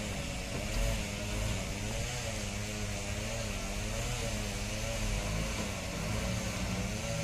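Heavy diesel engine running steadily, a low drone whose pitch wavers gently up and down.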